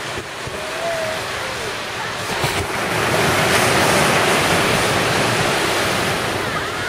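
Ocean surf breaking on a sandy beach, swelling to its loudest about halfway through as a wave crashes close by and washes up the shore.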